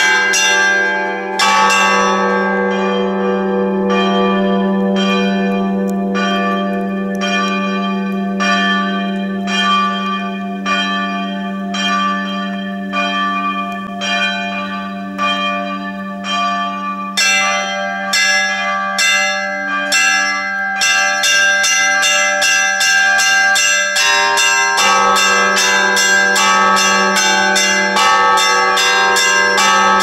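Several bells of an Orthodox church belfry rung together. A low bell hums steadily beneath repeated strikes of smaller bells, and the strikes quicken a little past halfway to about three a second.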